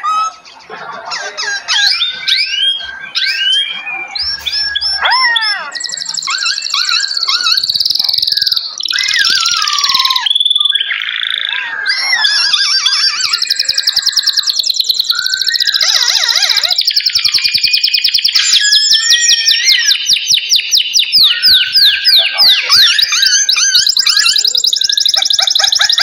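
Many songbirds singing together: overlapping whistles, warbles and gliding notes, thickening about halfway through into a dense run of fast repeated trills.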